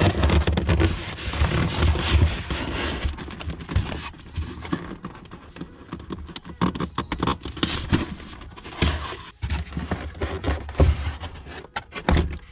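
Rigid black foam boot-floor inserts being handled and pulled out by gloved hands: scraping and rubbing of foam against foam and trim, with a run of sharp clicks and knocks in the second half.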